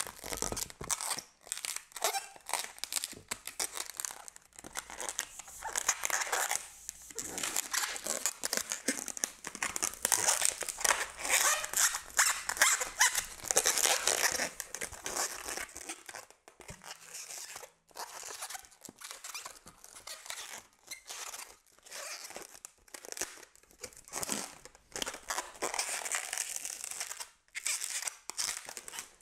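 Latex twisting balloons being twisted and handled, rubbing against each other and the hands in a long run of quick, irregular strokes with brief gaps.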